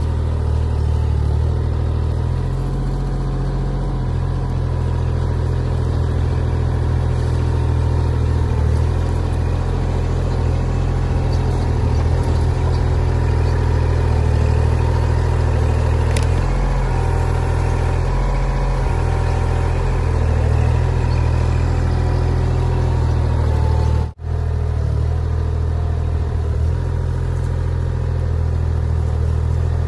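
Kubota L2501 compact tractor's three-cylinder diesel engine running steadily as the front loader digs into clay. The sound drops out for an instant about three-quarters of the way through.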